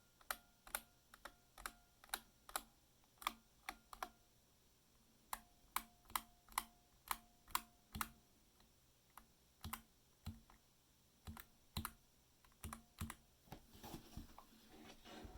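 ProtoArc MECH K300 mechanical keyboard being typed on in slow, separate keystrokes, each a sharp clack, many followed by a short metallic ring. The reviewer faults this keyboard for its metallic sound when the keys are released.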